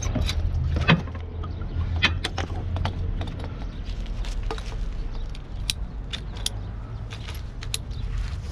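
A hand tool working on a green plastic water pipe and its fittings, giving irregular clicks and knocks, the loudest about a second and two seconds in, over a steady low rumble.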